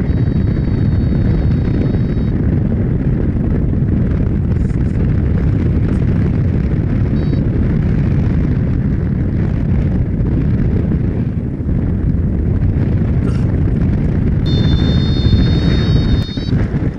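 Strong wind buffeting the microphone during a paraglider flight: a loud, steady rumble. A high electronic tone is held for about two seconds at the start, sounds briefly about seven seconds in, and is held again for about two seconds near the end.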